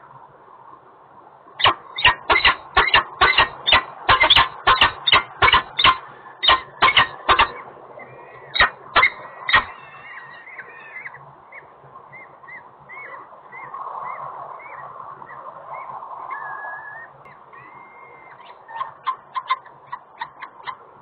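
Peregrine falcons calling at the nest while the chicks are fed: a loud, rapid series of harsh calls, about two to three a second for some eight seconds, then softer high chirps, and another short run of calls near the end.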